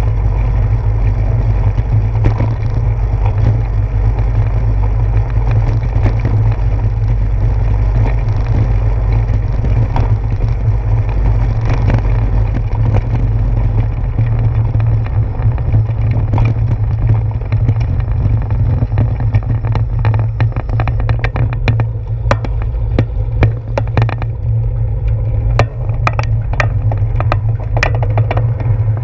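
Bicycle rolling over a wet brick-paved street, heard through a handlebar-mounted GoPro in its housing: a steady heavy rumble with a hiss over it. In the second half, clicks and knocks come thick and fast as the bars and mount jolt over bumps.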